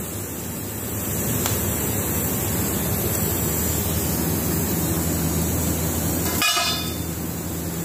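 Steady hiss and low hum from a gas stove burner under a pot of steaming jackfruit, with a brief pitched, horn-like tone about six and a half seconds in.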